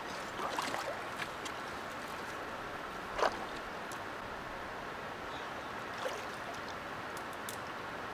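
Soft sloshing and splashing of shallow creek water as a person wades through it, the clearest splash about three seconds in and smaller ones near the start and about six seconds in, over a steady hiss.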